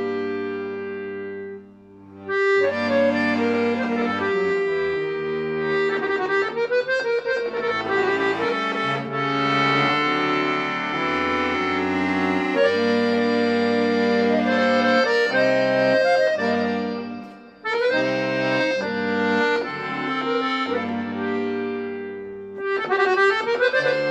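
Borsini piano accordion played solo: a melody on the treble keyboard over sustained bass notes and chords, with two brief breaks between phrases, about two seconds in and again about seventeen seconds in.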